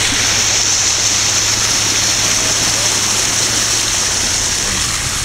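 Steady rush of water as a vehicle's tyres drive through a flooded road, with a low engine hum underneath.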